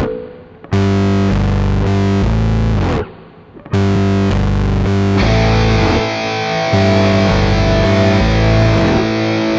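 Background rock music with distorted electric guitar chords in a steady rhythm. It drops out twice briefly in the first few seconds, then comes back fuller about halfway through.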